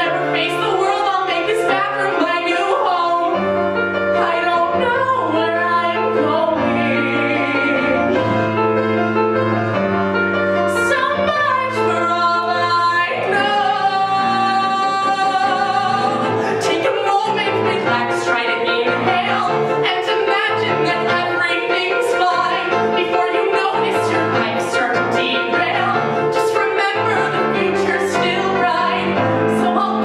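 A woman singing a pop song solo with piano accompaniment, with a couple of long held notes wavering in vibrato.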